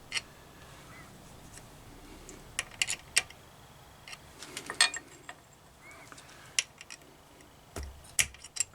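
Scattered light clicks and ticks of metal hand tools at work, irregularly spaced, as a coil thread repair insert is wound into a stud hole in a carburettor inlet manifold adaptor.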